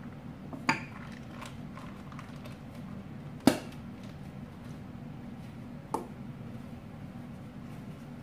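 Three short, sharp knocks as things are handled on a kitchen counter, the middle one the loudest, over a steady low hum.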